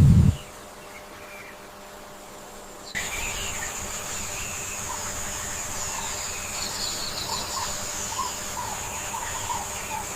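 Nature ambience: a steady high insect drone with scattered short bird chirps, which grows fuller about three seconds in. A brief low thump comes right at the start.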